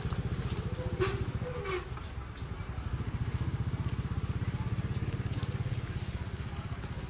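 A low, steady motor rumble with a rapid even pulse, like an engine running, with a few brief high chirps about a second in.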